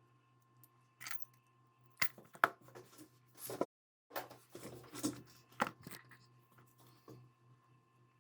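Scattered small metal clicks and scrapes as C-clips are fitted back onto the core of an ISEO euro cylinder lock, over a faint steady hum. The sound cuts out completely for a moment a little before halfway.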